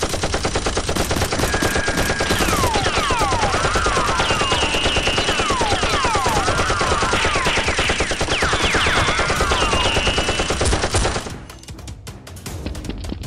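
Rapid automatic machine-gun fire sound effects laid over a Nerf blaster fight, with repeated falling ricochet whines mixed in. The fire cuts off suddenly about eleven seconds in.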